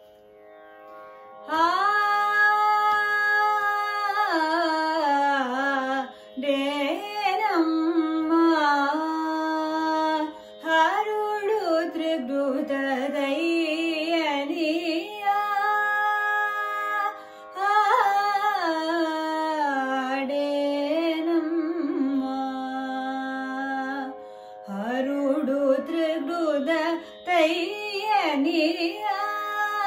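Female Carnatic vocalist singing long, gliding, heavily ornamented phrases over a steady drone, starting about a second and a half in after a brief quiet, with short breaths between phrases.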